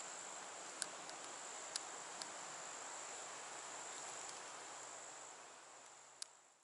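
Insects trilling steadily and high-pitched, cricket-like, with a few faint ticks, fading out near the end.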